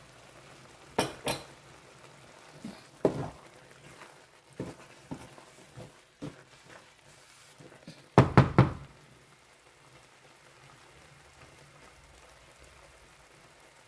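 Wooden spatula knocking against a pan while stirring a thick stew: scattered single knocks, then a quick run of three or four knocks about eight seconds in.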